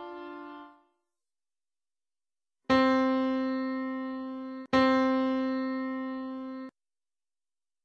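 Piano tone sounding one pitch near middle C, struck twice about two seconds apart, each note decaying and then cut off. The fading tail of an earlier note dies away in the first second.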